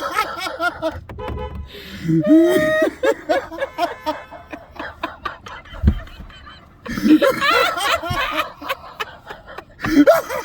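A man laughing hysterically in several wheezing bursts, with short quieter gaps between them.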